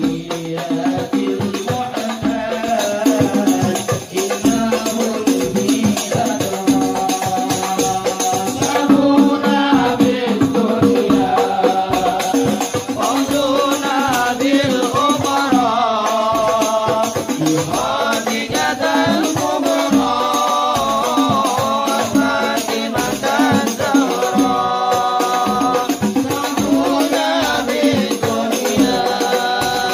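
Voices singing a chanted melody, with wavering held notes, over a fast, steady clatter of rhythmic hand clapping.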